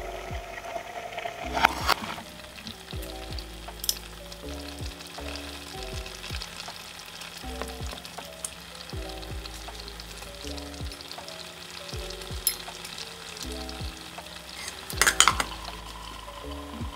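Chicken stew bubbling and sizzling at a simmer in a pot, over background music with a simple stepping melody and bass. A few sharp clicks cut through, the loudest a quick cluster near the end.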